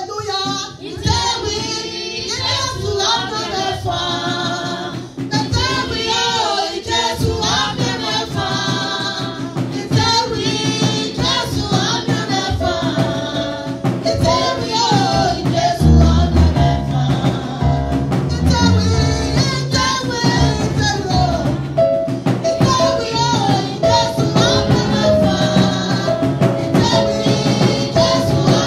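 A woman sings a gospel praise song into a microphone over backing music. About halfway through, the backing fills out with steady held notes and a low beat underneath.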